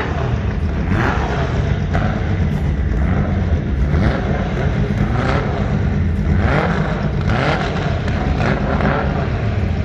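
Drag race cars' engines running, a steady low drone with a few short revs rising and falling in pitch.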